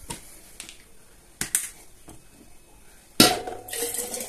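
A few sharp clicks and knocks of a perforated plastic draining lid handled against glass preserving jars, the loudest about three seconds in. Near the end water starts pouring steadily, the water being drained from the jars of tomatoes into a pot.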